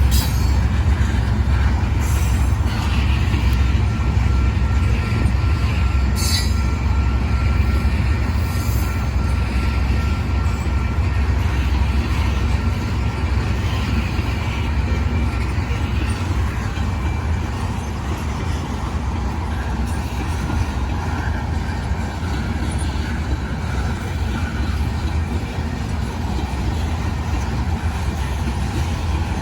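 Union Pacific freight train loaded with rock rolling past: a steady low rumble of the cars, with a faint high wheel squeal and a couple of sharp clanks.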